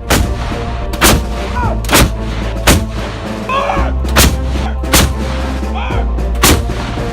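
Background music with deep bass and hard, loud drum hits about once a second, starting abruptly.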